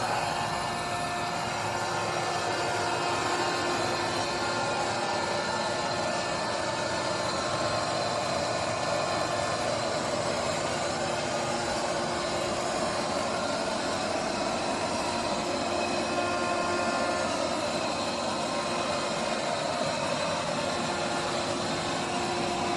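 ILIFE A12 Pro robot vacuum's motors running with a steady whir, a few constant tones over an even rushing noise.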